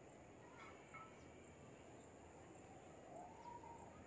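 Near silence: faint outdoor background hiss with a thin, steady high-pitched tone, and a few faint distant chirps and calls.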